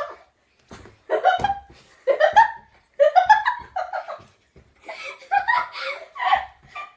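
Girls laughing in repeated bursts, some of them rising in pitch.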